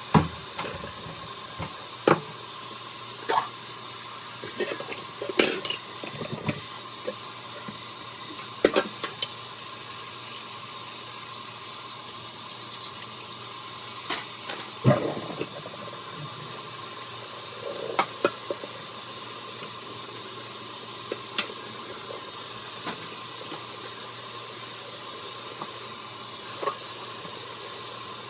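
Dishes being washed in a kitchen sink: water running steadily from the tap, with clinks and clatters of plates, utensils and pans being handled every few seconds.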